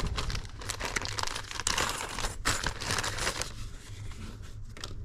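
Packaging of a new brake pad set crinkling and rustling as it is opened and handled, with irregular crackles and rips.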